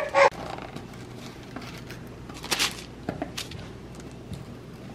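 Quiet room tone with a few brief soft rustles and clicks, the loudest about two and a half seconds in.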